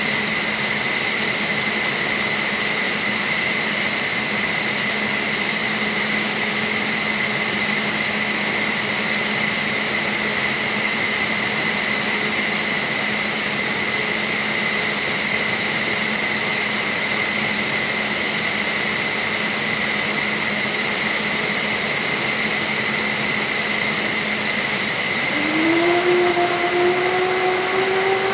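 F-15SG start-up: a steady turbine whine with a rushing, hissing noise. About 25 seconds in, a second, lower whine starts and climbs steadily in pitch as the level rises, the sound of a jet engine beginning to spool up.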